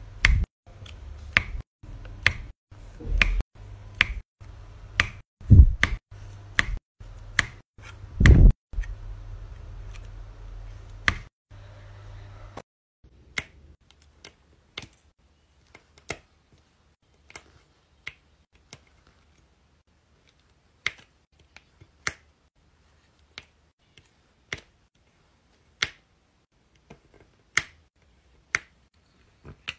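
Diamond-painting drill pen pressing square resin drills onto the sticky canvas: sharp clicks, about two a second for the first twelve seconds, then about one a second.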